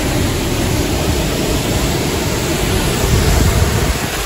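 Sea waves breaking and washing up on a sandy beach, a steady rush of surf, with wind buffeting the microphone.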